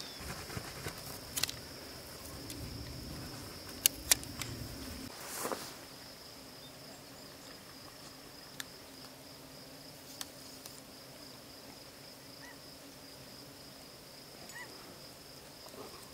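Insects trilling steadily on one high note, with a few sharp clicks, the two loudest about four seconds in, and a few faint short chirps near the end.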